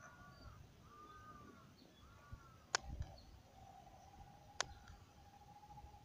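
Faint outdoor ambience: three short animal calls that rise and fall in pitch in the first two seconds, two sharp clicks later on, and a faint steady tone through the second half.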